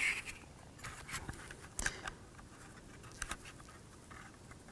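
Faint, scattered light scrapes and clicks of laser-cut kit pieces being handled and test-fitted together.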